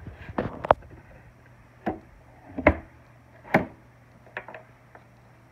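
Wooden knocks and clunks as the plywood lid of a wooden Japanese-style toolbox is set in place and closed over the chisel tray: five sharp knocks over the first four seconds, then a few lighter taps.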